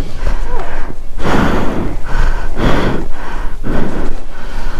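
Heavy breathing close to the microphone: loud, hard breaths about once a second.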